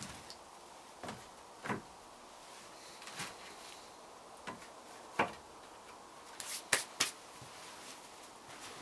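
Sawn wooden boards knocking and clattering as they are handled and stacked: a scattering of separate knocks, the loudest few close together near the seven-second mark.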